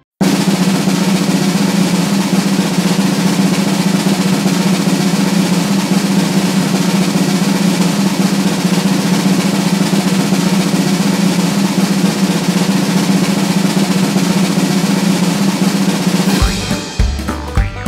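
A loud, steady snare drum roll held for about sixteen seconds, then upbeat music with a bouncing bass comes in near the end.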